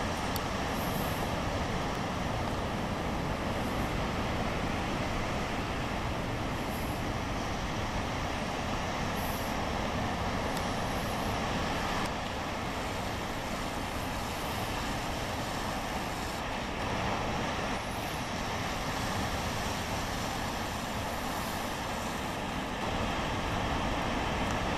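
Heavy ocean surf breaking and churning against rocks: a steady rushing noise with a deep rumble underneath, a little louder near the end.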